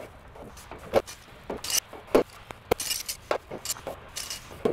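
Hidden gutter hangers being hooked into a long gutter section one after another: a run of irregular sharp metal clicks and clinks, about eight in all.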